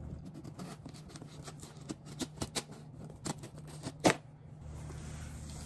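Scissor blade slitting and scraping along the packing tape of a cardboard box: a run of short scratches and taps, with one sharp, louder click about four seconds in.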